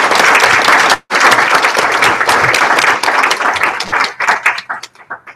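Audience applauding a talk: dense clapping that thins out into a few scattered claps and fades near the end. The sound drops out for an instant about a second in.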